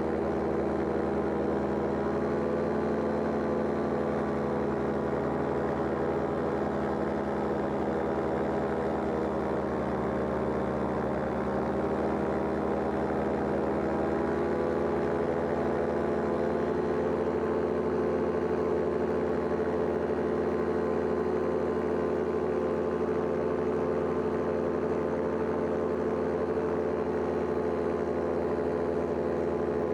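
Powered paraglider's engine and propeller running steadily in flight, the pitch wavering slightly a few seconds into the middle and then settling.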